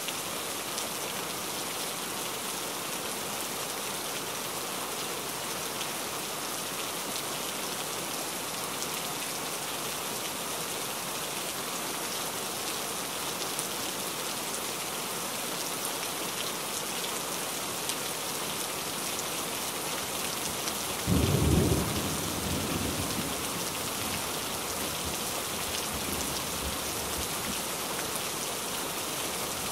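Steady, even rain-like hiss, with one short deep thump and rumble a little after two-thirds of the way through.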